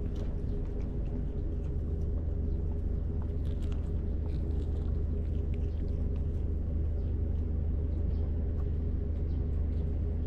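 A steady low engine hum, with faint crunching clicks from a cat chewing a small fish.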